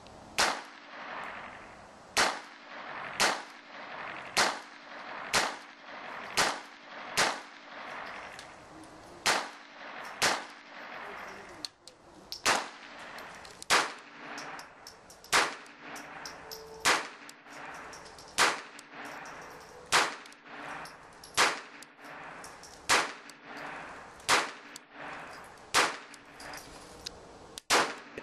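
Ruger SR-22 .22 LR semi-automatic pistol firing single shots at a steady pace of about one a second, more than twenty shots in all.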